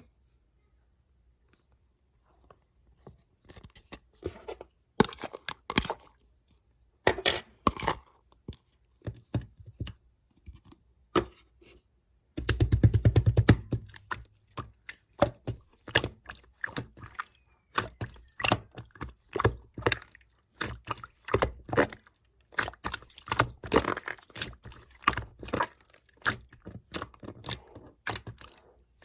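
Clear yellow slime being worked by hand: a long run of irregular sticky clicks, pops and squelches as it is pressed, poked and folded, with a dense stretch of rapid popping about halfway through.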